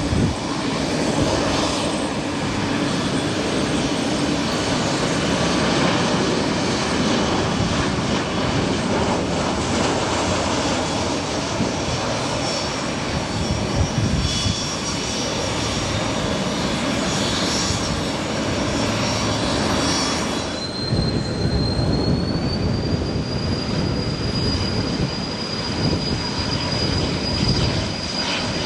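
Jet aircraft engines running: a steady, loud rumble with a high whine over it. About two-thirds of the way through the sound changes abruptly, and the high whine rises in pitch and then holds steady, as when the engines spool up.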